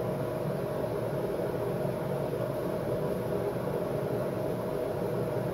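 A steady mechanical whirring hum that does not change.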